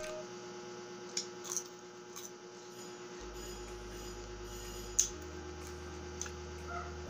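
Crispy fried chicken skin crunching between the teeth in a few sharp crackles, the loudest about five seconds in, over a steady low electrical hum.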